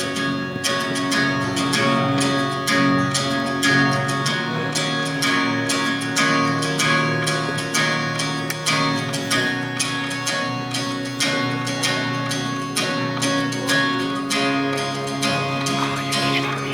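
Acoustic guitar strumming chords in a steady rhythm: the instrumental intro of a song, before any singing.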